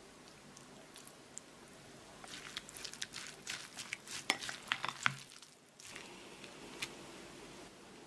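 Plastic rice paddle mixing vinegar into cooked rice in a glass bowl: a quick run of small clicks and taps of the paddle against the glass with soft squishing of rice, mostly in the middle of the stretch, and one more tap near the end.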